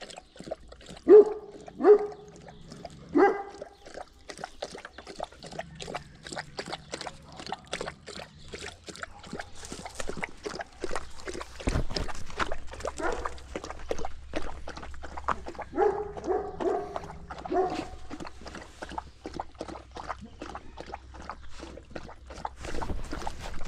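A dog barks three times in the first few seconds and again in a short run of barks about two-thirds of the way through. In between, a thirsty livestock guardian dog laps water in quick, repeated clicks.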